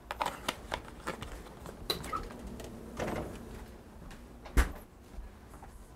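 Light clicks and knocks of kitchen items being handled on a counter, with one heavier thump about four and a half seconds in.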